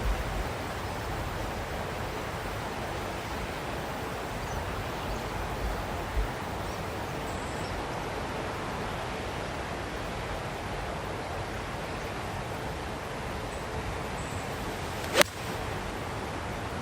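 Steady wind noise buffeting the microphone, with low gusts, then about 15 seconds in a single sharp click of a 7-iron striking a golf ball.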